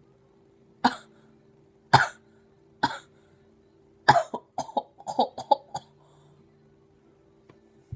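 A person coughing: three single coughs about a second apart, then a quick run of short coughs.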